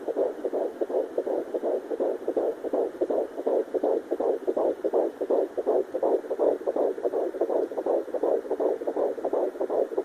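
Sonoline B fetal Doppler playing an unborn baby's heartbeat: rapid, even pulses a little over two a second, with a galloping rhythm. This is the sign that the baby's own heart has been found, in the normal fetal range of 120 to 180 beats a minute rather than the mother's 60 to 80.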